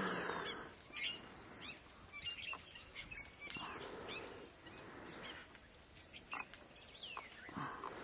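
Small wild birds chirping and calling in short, high notes scattered through, with two softer, noisier stretches, one in the middle and one near the end.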